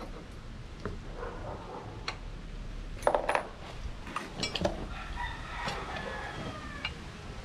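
Steel paddock stand parts clinking and knocking as washers and bolts are fitted to the tube frame by hand; a cluster of sharp clinks a little after three seconds in is the loudest, with more around four and a half seconds.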